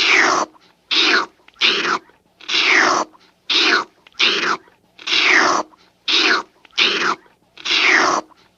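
Old cartoon sound effect: a string of short hissing swishes, each sliding down in pitch, repeated about once a second.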